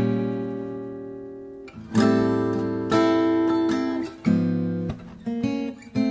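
Background music: acoustic guitar chords struck about once a second, each left to ring and fade.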